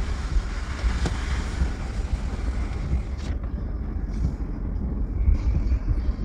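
Road noise inside a vehicle driving on a wet road: a steady low rumble with tyre hiss. The higher hiss drops away suddenly about three seconds in.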